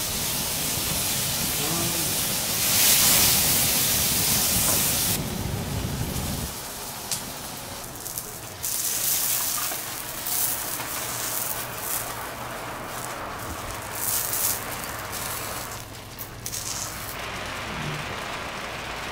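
Flambé flames rushing up around a foil packet on a hot teppanyaki griddle, with sizzling and hissing. The low rush of the flames stops about six seconds in, and a quieter steady sizzle carries on with a few short louder bursts.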